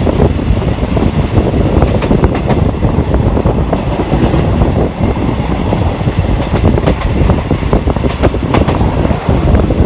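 Moving passenger train heard from aboard: a loud, steady rumble of wheels on the rails with irregular clicks and clatters.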